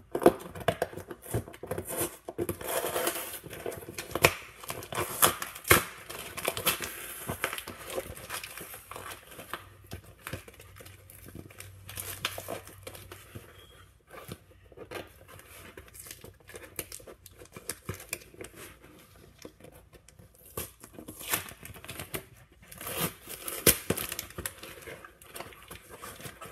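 Packing tape being torn and peeled off a parcel, with irregular ripping, crinkling and scraping of the packaging, busier at first and again near the end.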